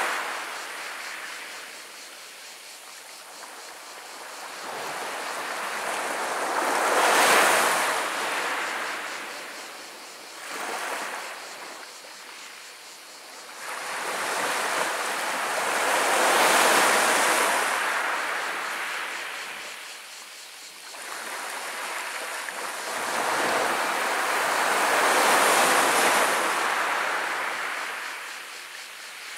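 Gentle sea waves washing up over a pebble beach, each one swelling in a hiss over the stones and drawing back; three larger waves come about nine seconds apart, with a smaller one between the first two.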